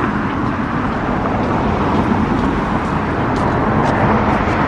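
Steady outdoor street noise with traffic, a dense, even rumble and hiss.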